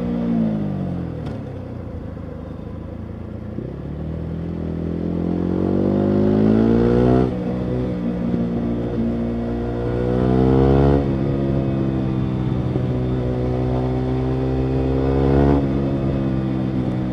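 Yamaha MT-125's 125 cc single-cylinder four-stroke engine through a full Akrapovic exhaust, heard while riding: it winds down at first, then accelerates, revving up and shifting up three times, the revs dropping sharply at each upshift.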